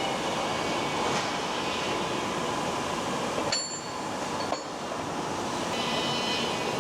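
Steady hum and hiss of extrusion factory machinery, with faint steady tones and brief high metallic ringing about three and a half seconds in.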